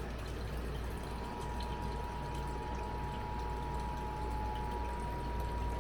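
Emergency Alert System attention signal: a steady two-note electronic tone that starts about a second in, over a steady hiss and low hum. The lower of the two notes drops out near the end.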